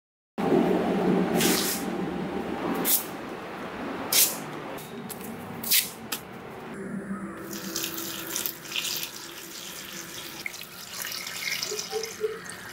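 Water running and splashing into a plastic bucket of torn waste-paper scraps, soaking them to make paper pulp, with a few sharp sudden splashes or knocks among it in the first six seconds.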